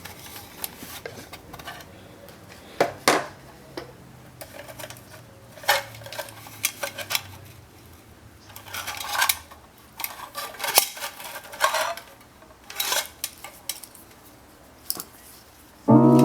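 Thin titanium camping cup and metal camp gear being handled: irregular light metallic clinks and taps, about a dozen spread unevenly, some with a brief ring.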